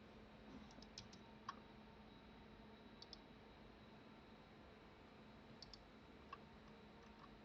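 Near silence with a faint hum and about ten faint computer mouse clicks, several in quick pairs.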